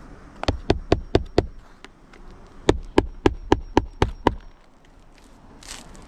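Hammer striking in two quick runs, five blows and then seven, about four a second, with a faint metallic ring between the blows.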